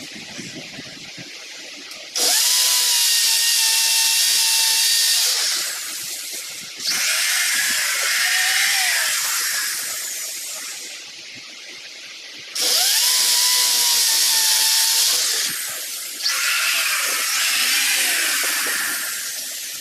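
Electric drill boring into a plastered wall in four bursts of a few seconds each, the motor whining up to speed at the start of each burst, the second and last bursts trailing off as they end.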